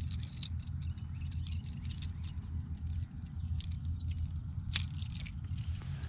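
Hard plastic fishing lures and their treble hooks clicking and ticking as they are handled, a topwater plug being unclipped from the line and a pencil lure clipped on. The clicks are irregular and come many times, over a steady low rumble.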